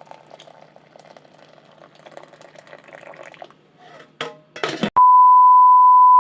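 Faint background noise with a low hum, then two short knocks about four seconds in. After that, a loud, steady electronic beep at a single pitch starts about five seconds in.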